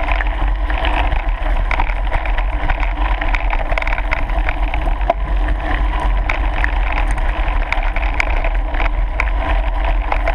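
Wheels rolling over a gravel track with wind buffeting the microphone: a steady low rumble and rushing noise, with many small scattered clicks from the stones.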